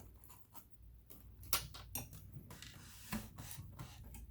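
Several sharp clicks and light taps from hands working at a sewing machine, the loudest about one and a half seconds in, over a faint low hum.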